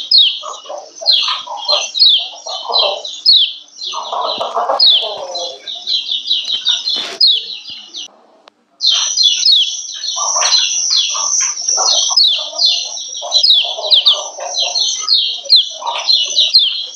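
Female kecial kuning (yellow white-eye) giving rapid, repeated high 'ciak ciak' chirps, with lower, rougher notes underneath. The calls break off briefly about eight seconds in, then resume.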